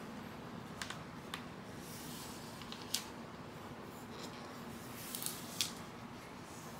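Self-adhesive vinyl sticker sheet being folded and pressed down by hand, giving a few brief crinkles and light taps over a faint steady hum.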